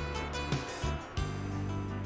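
Instrumental music with held low notes and several sharp drum hits.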